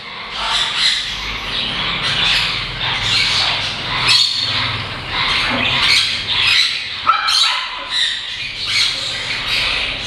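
Senegal parrots giving a long string of harsh squawks, one call after another.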